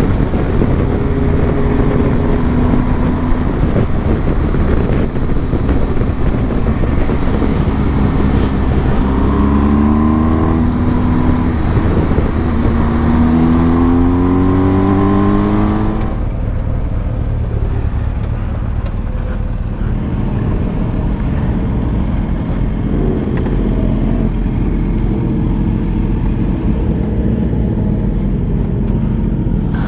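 Motorcycle engines at highway speed with wind rush: for roughly the first half an engine repeatedly rises in pitch, each climb cut off by a gear change, as the bikes accelerate. Then the sound changes suddenly to a lower, steadier engine rumble at low speed.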